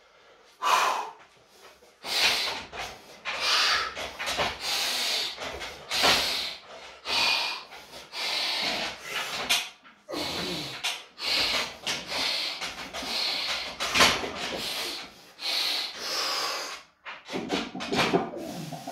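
A weightlifter taking rapid, forceful, hissing breaths, roughly one or two a second, psyching up and bracing under a heavy barbell before a squat. A single sharp click sounds about two-thirds of the way through.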